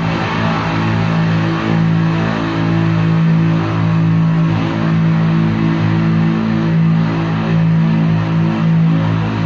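Heavily distorted electric guitars holding a loud, sustained low drone, a wall of noise and feedback over steady bass notes.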